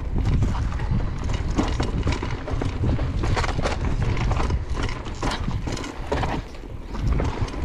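Mountain bike descending a dirt trail at speed: the bike rattling and clattering over the bumps in many quick knocks, over a steady low rumble of wind on the handlebar camera's microphone.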